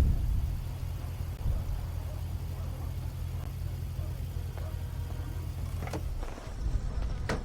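Car engine idling with a steady low hum that stops about six seconds in, followed by a sharp knock near the end.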